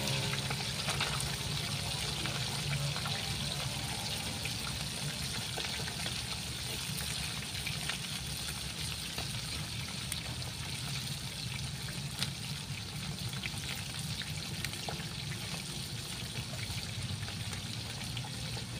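Whole fish frying in hot oil in a wok over a wood fire: a steady sizzle with many small scattered pops and crackles.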